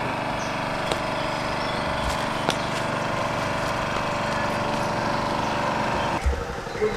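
A small engine running steadily at a constant pitch, which stops abruptly about six seconds in.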